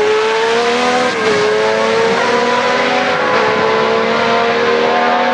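Historic Formula 1 car's engine accelerating hard away out of a corner. The revs climb, drop sharply at an upshift about a second in, then climb steadily again through the next gear.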